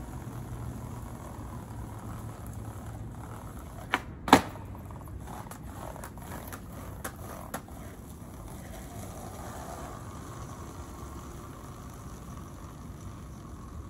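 Skateboard clacking on pavement: two sharp hits about a third of a second apart about four seconds in, the second much louder, then a few lighter clicks over the next few seconds, over a steady low background rumble.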